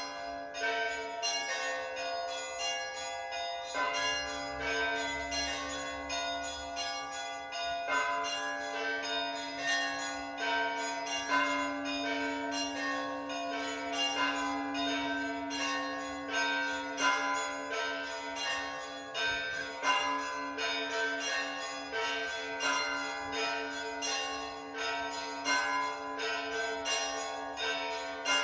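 A peal of church bells ringing continuously: several strikes a second from many bells of different pitch, over one steady low bell tone that keeps sounding.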